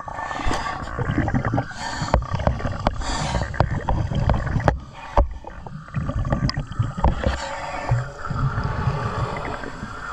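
Water gurgling and sloshing with a low rumble and many scattered knocks and clicks.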